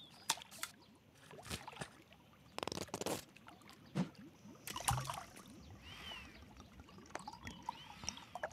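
Water in a swimming pool splashing and lapping in small, scattered bursts, with a few sharp clicks and knocks.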